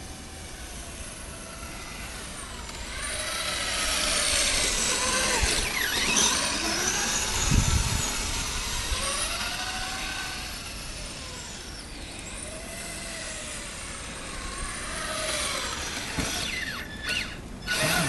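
Kyosho Blizzard RC snowcat's electric motor and drivetrain whining as it drives through snow, the pitch rising and falling as it speeds up and slows down. It is loudest about four to eight seconds in, with a few sharp clicks near the end as it comes close.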